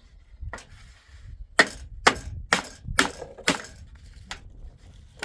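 Hammer blows on wood: about seven sharp knocks, the loudest coming about two a second in the middle.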